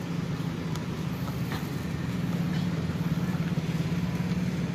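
An engine running steadily: a constant low hum that holds one pitch without revving.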